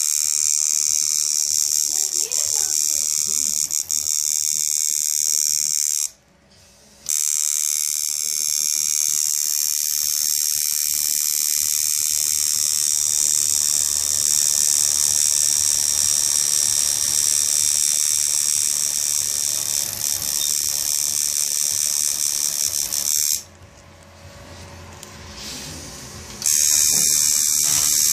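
Electric tattoo machine running with a steady high buzz as it works on skin. It stops for about a second around six seconds in, and again for about three seconds near the end, before starting up again.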